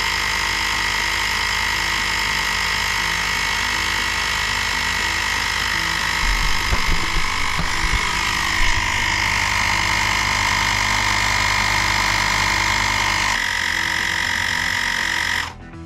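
Cheap battery-powered portable mini tyre compressor running steadily as it pumps up a motorcycle tyre, with its battery running down. The tone shifts slightly near the end, then it cuts off suddenly, having brought the tyre to only about 1 bar of its 2 bar target.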